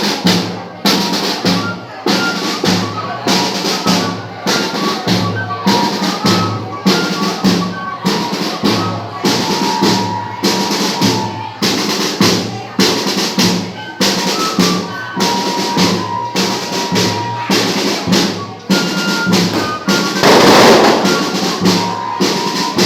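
Banda de pífanos playing: fifes play a melody in short held notes over a steady beat of bass drum and snare drum. The music swells louder about twenty seconds in.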